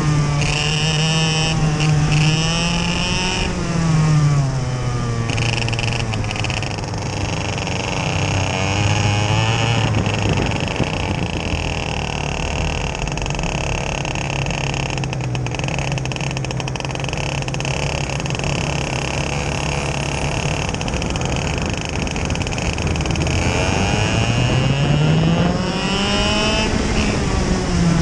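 Onboard sound of a TaG racing kart's two-stroke engine at race pace, its pitch dropping off the throttle about four seconds in, holding lower for a long stretch, then climbing again late before falling near the end. Other karts' engines run close by.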